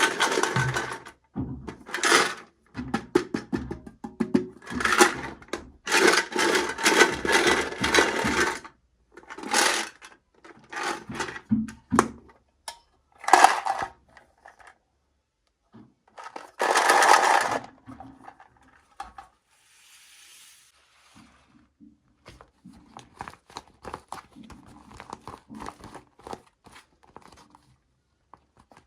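Hands unboxing small toys: bursts of crinkling and rustling plastic packaging with small clicks and taps, loudest in the first half and quieter small clicks and taps in the last part.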